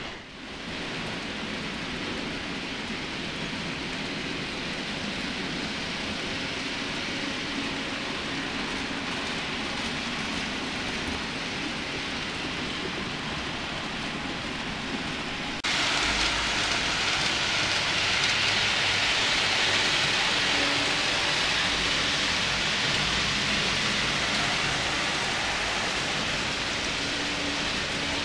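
N-scale model trains running on the layout: a steady hiss and whir of small wheels on metal rails and tiny motors. It jumps suddenly louder and brighter about halfway through.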